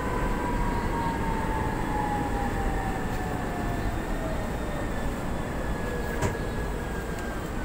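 Inside a Manila MRT-3 train car as it slows into a station: a steady low rumble of wheels on rail, under a motor whine that falls steadily in pitch as the train brakes. A single sharp click about six seconds in.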